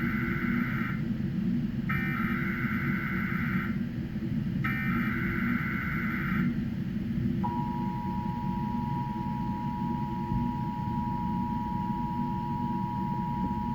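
Emergency Alert System SAME header: three bursts of two-pitch digital data tones, the first already under way, each about two seconds long. About seven seconds in, the EAS two-tone attention signal starts and holds steady to near the end, over a steady low hum.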